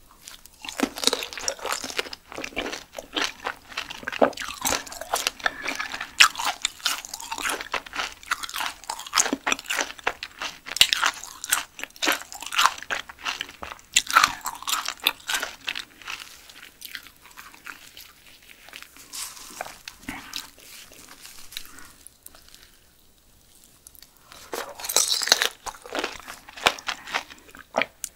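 Close-up chewing of giant pupae (wang-beondegi): wet crunching, with the shells clicking and popping between the teeth. The chewing is dense and loud for the first half, goes quieter for several seconds, then comes back in a loud burst near the end.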